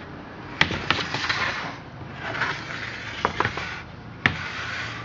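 Handling noise from a chainsaw being moved and turned over: a few sharp clicks and knocks with rustling scrapes between them.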